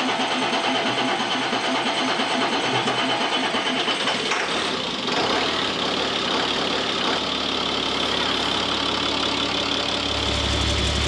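An engine running with an even pulse. Its sound changes about four and a half seconds in, and a deeper rumble builds near the end.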